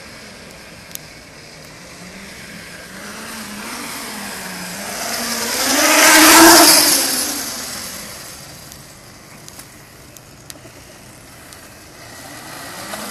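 Electric pitbike with a Motenergy ME0913 brushless motor passing close by: motor whine and tyre hiss grow louder as it approaches, peak as it goes past, then drop in pitch and fade as it rides away.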